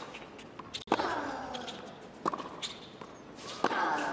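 Tennis rally: three sharp racket strikes on the ball, about a second and a half apart. The first and third are each joined by a player's grunt that falls in pitch.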